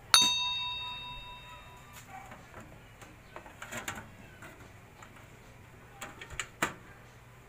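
A single bell-like chime rings out near the start and fades over about two seconds. It is followed by a few light clicks and knocks as hands move cables and a hard drive inside a metal computer case, the sharpest of them about six and a half seconds in.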